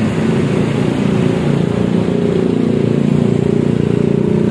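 Busy road traffic close by: buses, cars and motorcycles passing, their engines making a steady low drone.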